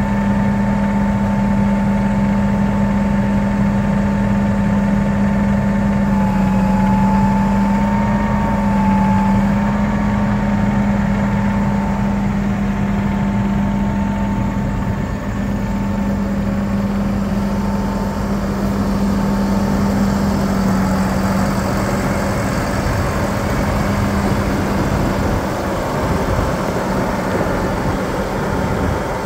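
Case IH Magnum 315 tractor's six-cylinder diesel engine idling steadily, a constant hum with a whine over it that wavers briefly about eight seconds in.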